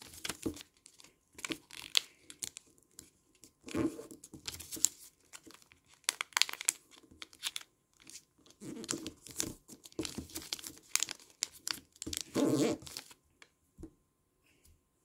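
A sheet of origami paper rustling and crinkling as hands fold its four corners in to the centre and press the creases down. The noises are irregular, with louder stretches about four seconds in and again near the end.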